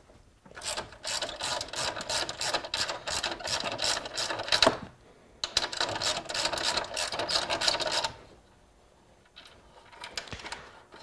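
Hand socket ratchet wrench clicking rapidly as it turns bolts out of the ATV's frame, in two long runs with a short pause between them.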